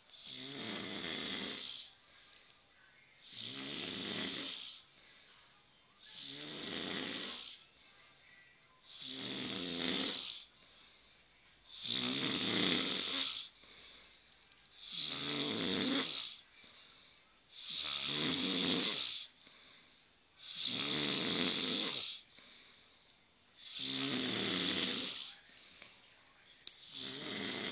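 A person snoring heavily, about ten loud snores at an even pace of roughly one every three seconds, each lasting about a second and a half, with a rough, tractor-like sound.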